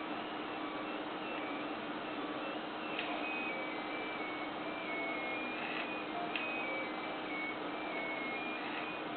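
Stepper motors of an H-Bot 3D printer on a dry test run, driving the print head: a whine that steps from pitch to pitch as the head changes speed and direction, with a few sharp clicks, over a steady low hum.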